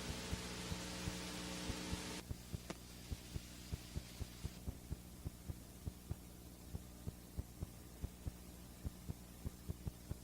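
Steady electrical hum with a string of short clicks, about two or three a second. A hiss drops away about two seconds in, leaving the hum and the clicks.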